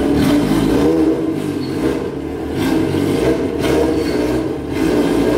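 Yamaha XJ6's inline-four engine running, its pitch rising and falling, with several clunks about a second apart as the motorcycle is pushed up onto a trailer deck.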